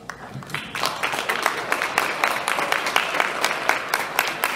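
Audience applauding, a few claps at first that swell within about a second into steady clapping from the whole crowd.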